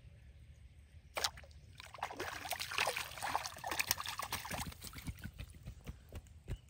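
A hooked fish thrashing and splashing at the water's surface as it is pulled in on a line: a sudden splash about a second in, then a few seconds of hard, rapid splashing that thins out into scattered drips and knocks as the fish leaves the water.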